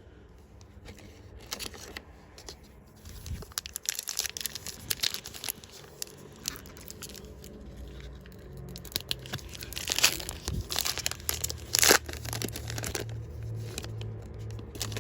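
A foil booster-pack wrapper being torn open and crinkled by hand, with irregular crackling and rustling and two louder rips about ten and twelve seconds in.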